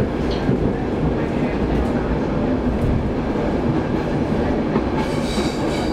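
Stockholm Metro train running, heard from inside the car: a steady low rumble of wheels on track, with a brief high squeal about five seconds in.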